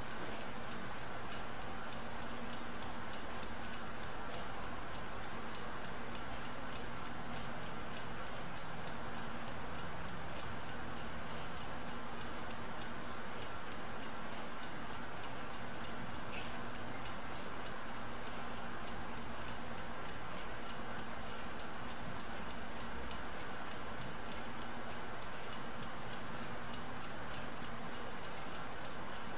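Mechanical laboratory stopclock ticking steadily and evenly, timing the run, with a faint steady hum underneath.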